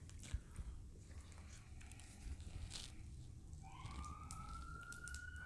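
Faint clicks and crackles of king crab shells being handled and cut. About three and a half seconds in, a faint siren wail starts, rising and then slowly falling.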